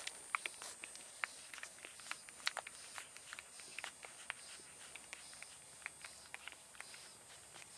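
Week-old French Bulldog puppies suckling at their mother's teats: irregular quick, wet clicks and smacks, several a second.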